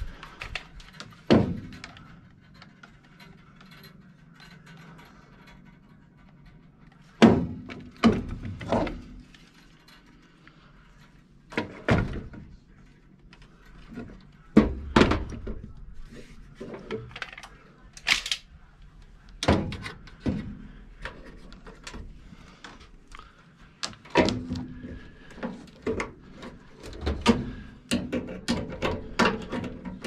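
Irregular knocks and clanks of tools and sheet metal being handled inside a furnace's blower compartment, each knock separate, with a busier run of them near the end.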